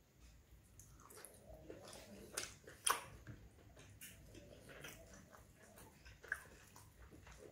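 Close-up eating sounds: chewing a mouthful of plain roti with curry, along with soft sounds of fingers tearing and folding the flatbread. Scattered small clicks, the sharpest about three seconds in and another a little past six seconds.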